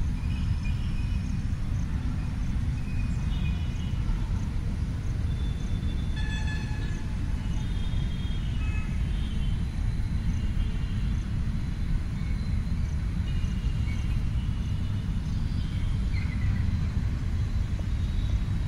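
Wind buffeting the microphone as a steady low rumble, with short high chirps here and there.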